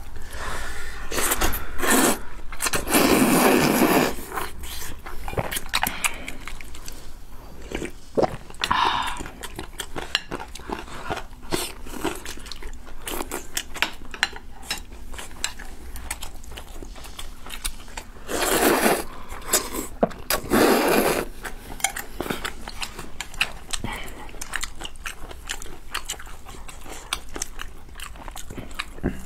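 Close-miked eating of noodles and braised meat: wet chewing and smacking with many small clicks, and long noisy slurps of noodles a couple of seconds in and twice again about two-thirds of the way through.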